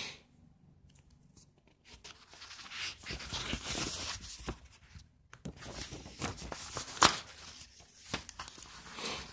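Paper pages of an old comic magazine rustling and crinkling as they are handled and turned, with irregular light clicks and one sharp click about seven seconds in.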